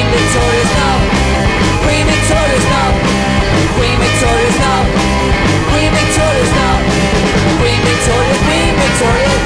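Punk rock song with drums, electric guitars and bass at a steady beat, with a bending melodic line over it.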